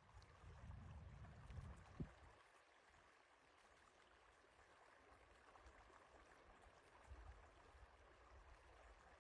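Faint, steady rush of running water, as of a flood stream, with low rumbling in the first couple of seconds and again near the end, and a single knock about two seconds in.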